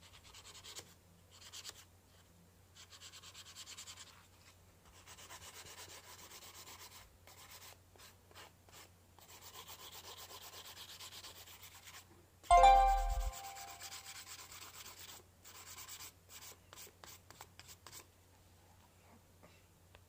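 Hand nail file rasping over acrylic nails in repeated strokes. About twelve and a half seconds in there is one sudden, loud ringing knock, the loudest sound, which fades within about a second.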